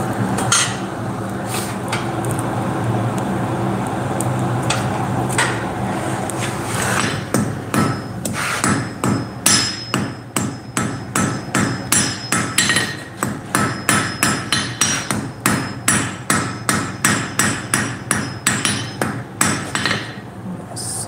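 A steady hum for about seven seconds, then a hand hammer beating hot metal on an anvil in a fast, even run of blows, about three a second, each with a short metallic ring, stopping just before the end.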